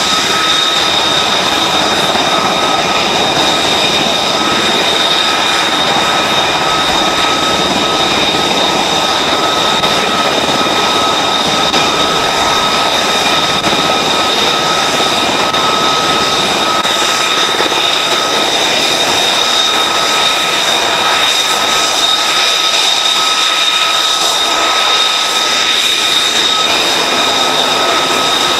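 Jet aircraft engines running steadily on a carrier flight deck: a constant rushing noise with two steady high-pitched whines.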